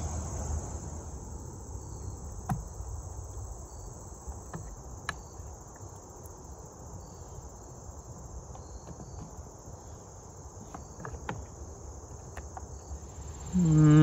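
Steady high-pitched insect chorus, with a few faint clicks of small metal parts as the carburetor is worked loose by hand. Right at the end a loud drawn-out call cuts in, falling in pitch.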